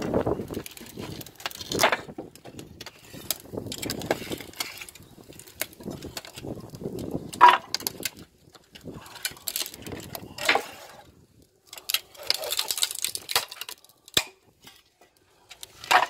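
Irregular knocking, scraping and rustling of firewood and a metal rack being handled at the mouth of a fire-brick wood-fired oven, with a few sharp clicks.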